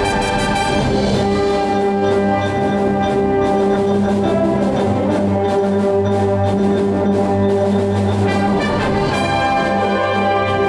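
Concert wind band playing sustained brass chords over a steady held low note, with regular percussion strokes; more high parts come in near the end.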